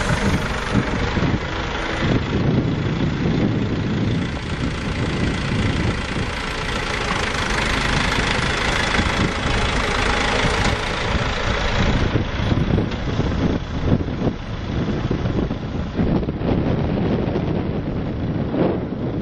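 John Deere 480B rough terrain forklift's engine running steadily as the machine drives across gravel.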